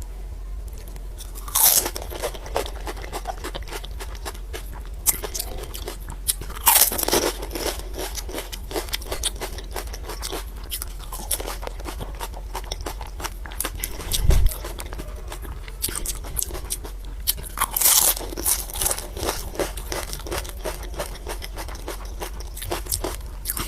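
Crisp pani puri shells crunching as they are bitten, with three loud bites (about two seconds in, about seven seconds in and about eighteen seconds in) and steady crackly chewing between them. There is one dull low thud a little past the middle.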